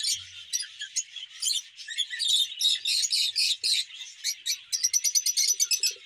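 A large flock of lovebirds, many of them lutino, chattering in many overlapping high-pitched chirps, with quicker runs of chirps near the end.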